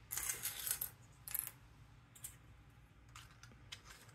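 Light plastic clicks and rattles as 3D-printed counter segments are handled and slid into place in a printed plastic plate. There is a quick cluster of clicks in the first second, another brief cluster about a second and a half in, then a few fainter ticks.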